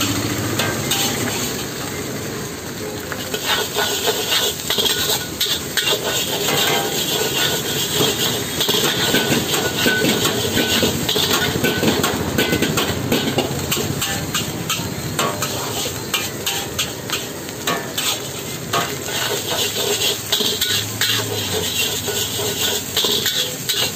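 Metal spatula scraping and clanking against a large iron wok as egg fried rice is stir-fried, the strokes coming rapidly and steadily from about three seconds in. Under it, a steady sizzling hiss from the hot wok.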